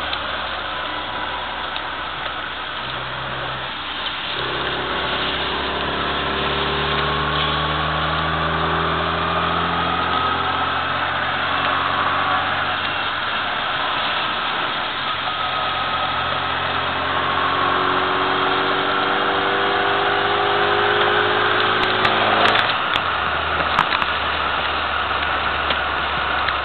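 1998 Mini Cooper's 1275 cc A-series four-cylinder engine heard from inside the cabin, pulling hard with its pitch climbing through the revs in two long runs, over a steady hiss of tyres and spray on a wet track. A few sharp clicks near the end.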